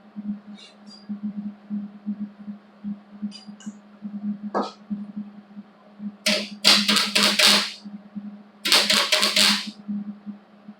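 Welder crackling in two bursts of about a second and a half each, tacking a slide hammer's tip onto a dent in a car's sheet-metal body panel, over a steady low hum. A few fainter clicks come before the bursts.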